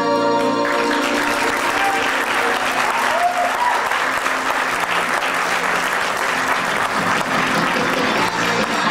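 A recorded choir song's last held chord ends just under a second in, then an audience applauds steadily.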